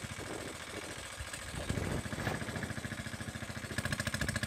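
Small water-pump engine running steadily with an even, rapid thumping beat.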